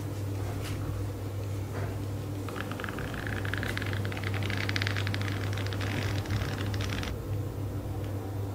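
Paper flipbook pages riffling rapidly off the thumb: a fast fluttering run of paper clicks that starts about two and a half seconds in and stops abruptly about two seconds later than it would take to read a line, near the seven-second mark, over a steady low hum. A couple of single page clicks come before it.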